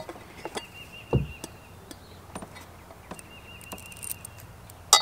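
Small screws and washers handled by hand while fitting a boat pedestal seat base: a soft thud about a second in, then scattered light clicks.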